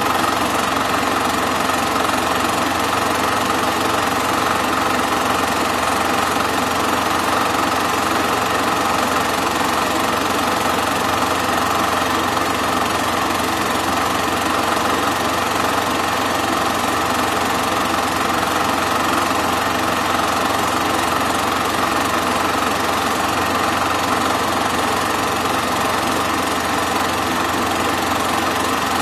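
Super 8 film projector running steadily, its motor and film transport making an even mechanical noise with no change in pace.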